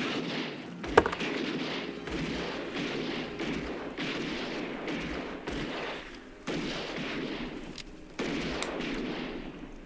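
Gunfire from a Western film's shootout: a continuous barrage of gunshots, with one loud sharp shot about a second in and fresh volleys further on.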